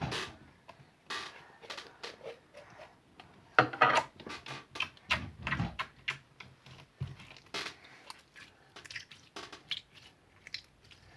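Slime being squeezed and worked by hand: irregular squelching and small clicking pops, loudest around four and five seconds in.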